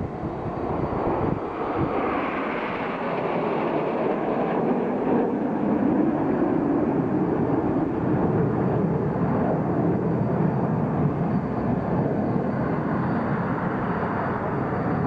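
Steady rushing jet noise from a formation of BAE Hawk jet trainers passing overhead, their Rolls-Royce Turbomeca Adour turbofans heard from the ground.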